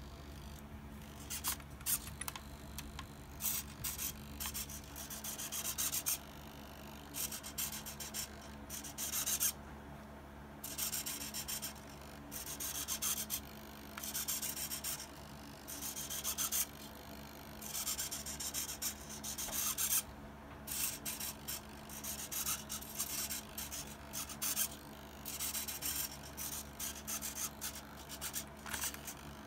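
Micro servo and its plastic gears in a 1/35 M1A2 Abrams model whirring in many short bursts with uneven pauses as they drive the gun up and down: the barrel stabilizer correcting the barrel's angle while the hull is tilted.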